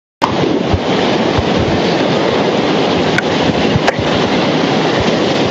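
Loud, steady rushing of a muddy flash flood surging across open ground, with two sharp clicks a little after three and four seconds in.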